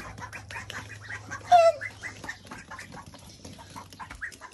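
A small flock of ducks quacking and chattering, with one loud quack that falls in pitch about a second and a half in.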